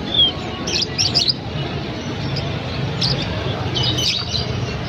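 Songbirds chirping in short, high clusters about a second in, around three seconds and near four seconds, over a steady low background hum.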